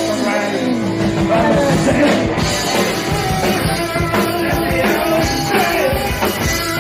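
A rock band playing live: a loud rock song with a man singing over the full band.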